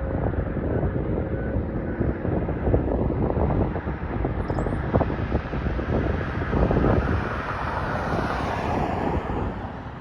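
Wind buffeting the microphone over road traffic, with a vehicle passing about two-thirds of the way through. A short bird chirp comes near the middle.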